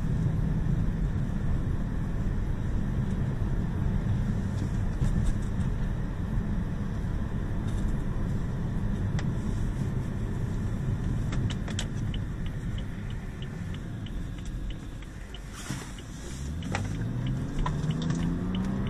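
Car engine and road rumble heard from inside the cabin while driving. Past the middle a turn signal ticks steadily for a few seconds, the engine drops almost to idle at a stop, and near the end it rises in pitch as the car pulls away and accelerates.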